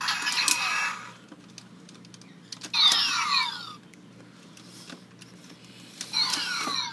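Kamen Rider Double toy transformation belt (Double Driver) playing its electronic sound effects through its small speaker: three short bursts, the second and third with sweeping tones falling in pitch.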